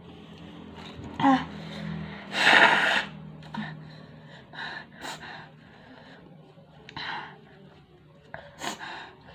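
A short gasp, then a hard nose blow into a paper tissue, followed by several short sniffs and sharp breaths. Her nose is running from the chili heat of the spicy snacks.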